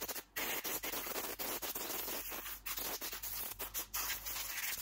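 Compressed-air blow gun hissing lightly in short, broken spurts, blowing dust out of a plunge saw's motor vents.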